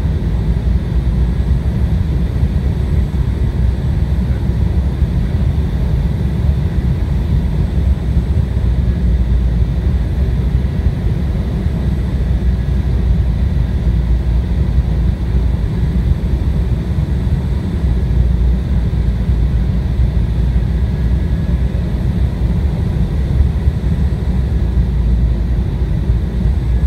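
Steady cabin noise inside an Embraer 175 airliner on approach: a low rumble of airflow and its GE CF34 turbofan engines, with faint steady high whines over it.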